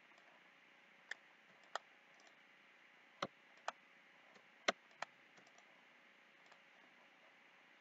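Computer mouse clicking: about six sharp, separate clicks spread irregularly over a few seconds, over faint background hiss.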